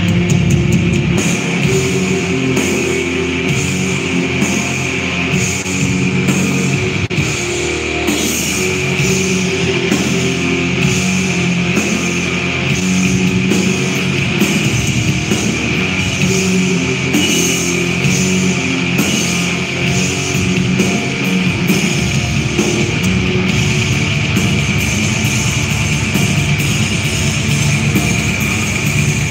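Black metal band playing live: distorted electric guitars and a drum kit in a dense, unbroken wall of sound, heard from the audience.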